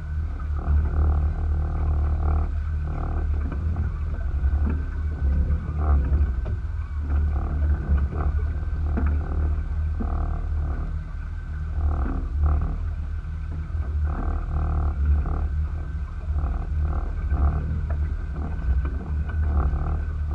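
Small outboard kicker motor running steadily, heard as a dull low rumble.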